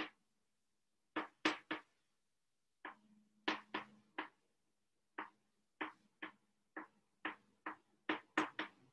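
Chalk writing on a chalkboard: about fifteen short, sharp chalk strokes and taps at an uneven pace, with silence between them.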